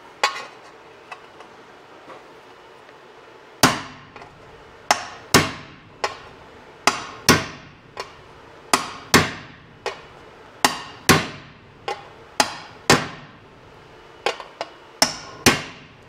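Hammer blows shaping a sheet-metal patch panel: about twenty sharp, ringing metallic strikes at an irregular pace, often in quick pairs, with a few light taps before the steady hammering starts a few seconds in.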